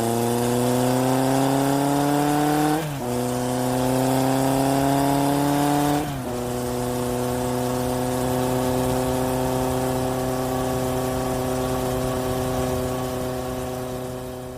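Car acceleration sound effect dubbed over the audio: the engine note climbs, drops at a gear change about three seconds in and again about six seconds in, then holds a steady pitch and fades near the end.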